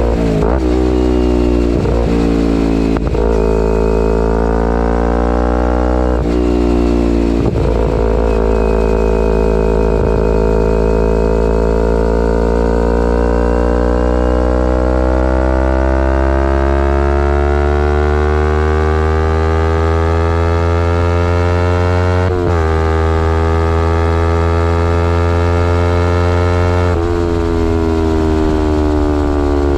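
Kawasaki Ninja 250R's parallel-twin engine through a full Graves race exhaust while riding. There are several quick gear changes in the first few seconds, then a long steady pull with slowly rising pitch, and two more shifts later on.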